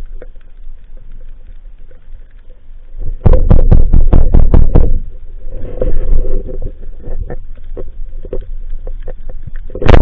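Underwater rumble heard through an action camera's housing, with scattered clicks and a run of loud rapid clicks about three to five seconds in. Near the end, a sharp loud crack as the Cressi Geronimo rubber-band speargun is fired.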